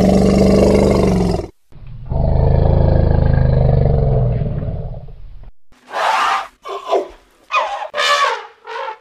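Elephant calls: two long, loud, low roars, the second fading out, then about five short calls gliding up and down in pitch.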